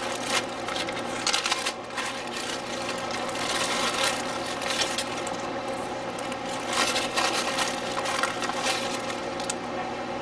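Clear plastic zip-top bag crinkling and rustling as hands rummage through the paper sticker sheets inside, irregular and continuous, over a steady low hum.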